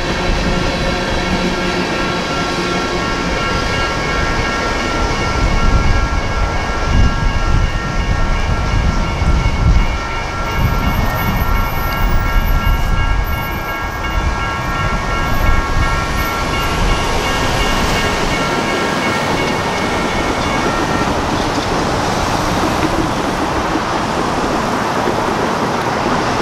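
Freight train tank cars rolling past with a low rumble and clickety-clack, while the crossing's electronic bells (GS Type 1 E-Bells) ring steadily; the owner notes that one bell has lost some of its tone and rings quieter. The bells cut out in stages about seventeen to twenty-one seconds in, and then the noise of cars driving over the crossing rises.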